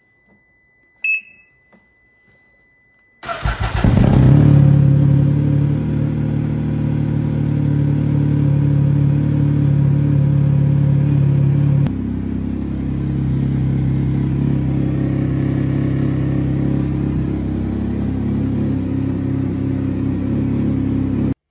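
A short beep, then the Can-Am Ryker 900's Rotax three-cylinder engine cranks briefly and catches on a fresh replacement battery after the old one had died. It settles into a steady idle around 1400 rpm, the note dropping slightly about twelve seconds in, and cuts off abruptly near the end.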